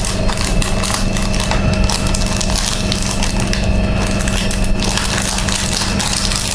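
Close crackling and crinkling handling noise from small things worked in the hands, a dense run of tiny clicks, over a steady electrical hum.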